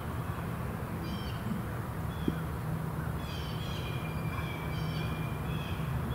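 Birds singing, with high chirping notes about a second in and a longer run of them from about three seconds in, over a steady low outdoor rumble. A single sharp tick comes a little after two seconds.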